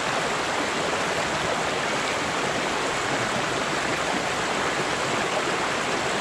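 Swift, shallow mountain stream rushing over boulders and small rapids: a steady, unbroken rush of water.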